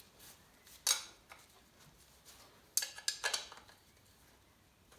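Metal clinks as the rocker cover is set onto the Ferguson TED20 engine's cylinder head: one sharp clink about a second in, then a quick run of clinks near the middle.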